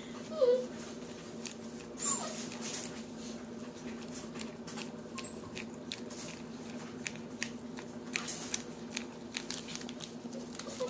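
A dog licking peanut butter off a sheet of paper: wet licks and smacking clicks come in irregular runs throughout. Two short whines sound in the first two seconds, over a steady low hum.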